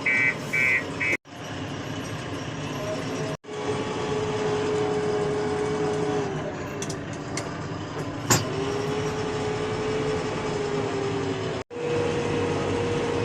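JCB 3DX backhoe loader's diesel engine and hydraulics running steadily, with a held whine. A reversing alarm beeps in the first second, there is one sharp click about two-thirds through, and the sound drops out abruptly three times.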